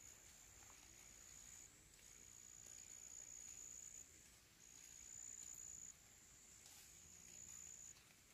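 Faint, high-pitched insect trill, going in four steady stretches of one and a half to two seconds with short breaks between them.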